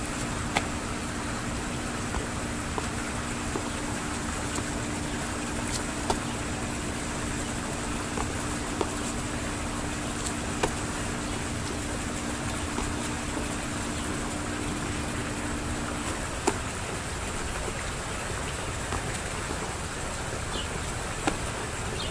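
Sneakers landing in repeated box jumps onto a stone planter ledge and back down onto stone steps: a few sharp, short knocks at irregular intervals. Underneath is a steady hiss and a low steady hum that stops about sixteen seconds in.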